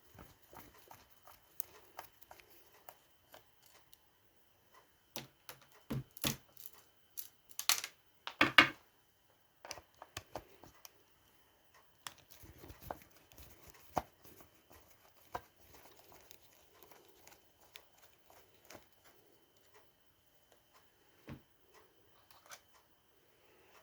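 Intermittent clicks, taps and rustles of small items being handled on a bench, with two louder bursts about eight seconds in. A faint steady high tone runs underneath.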